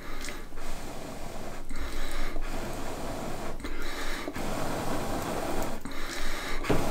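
Someone blowing hard on smouldering campfire embers to get the flames going: a series of breathy blows of a second or so each, with short breaks for breath between them.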